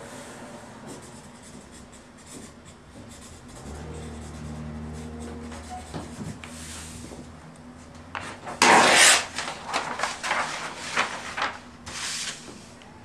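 Marker pen scratching on large paper sheets in short strokes. About eight and a half seconds in, a loud scraping rustle as the paper is moved across the wooden floor, then a run of shorter rasping scrapes.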